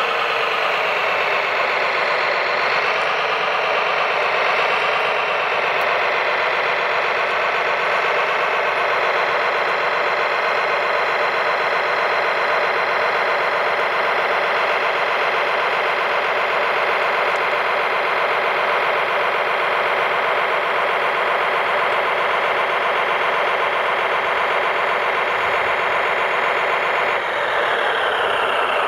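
Radio-controlled Liebherr crawler dozer model running steadily as it drives up onto a lowboy trailer, an engine-like drone. Its pitch wavers in the first few seconds and falls about two seconds before the end.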